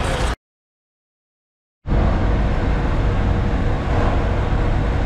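Steady engine and road rumble heard inside a concrete-mixer truck's cab while driving. The sound drops out completely for about a second and a half just after the start, then the rumble resumes unchanged.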